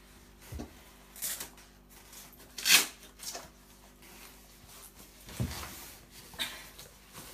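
Leather motorcycle suit and race boot rustling and rubbing as the boot is pulled on and fastened, with a couple of soft thumps of the boot against the floor. A sharp rasp a little under three seconds in is the loudest sound.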